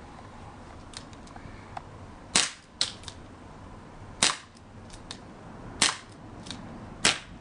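ASG Dan Wesson 4-inch CO2 airsoft revolver, powered by a 12g CO2 bulb, firing four sharp shots spaced about one and a half to two seconds apart, with fainter clicks between the shots.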